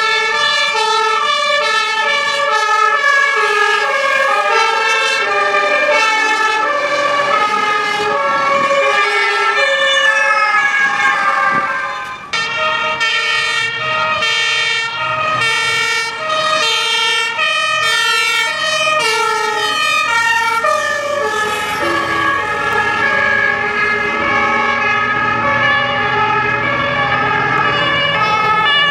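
Fire truck siren sounding continuously in a two-tone pattern, switching back and forth between a higher and a lower pitch, over a steady high tone. It dips briefly about twelve seconds in, and a low rumble rises beneath it in the second half.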